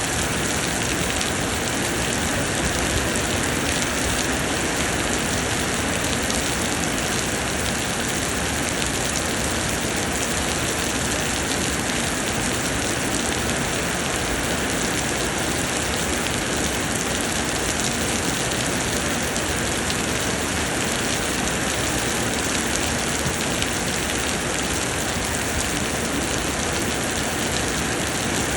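Summer rain pouring steadily, a dense, even hiss of falling rain with no let-up.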